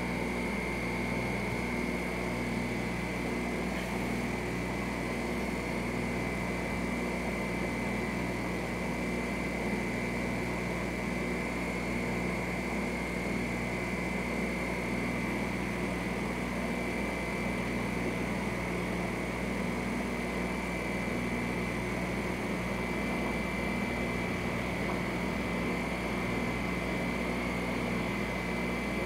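Steady mechanical hum with a few low tones and a thin, constant high whine.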